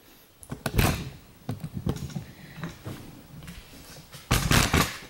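Handling noises: a sharp knock a little under a second in, scattered light clicks and rustles, then a louder burst of rustling clatter near the end.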